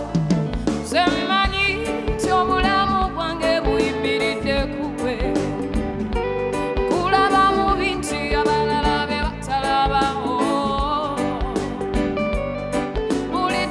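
Live band music: a voice singing a wavering melody over instruments and a steady drum beat.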